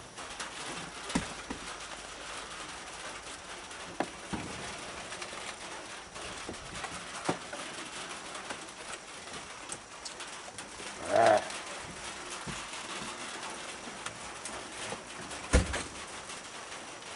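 Steady background hiss with several sharp knocks from a handheld phone camera being moved about. About eleven seconds in there is one short pitched call, the loudest sound.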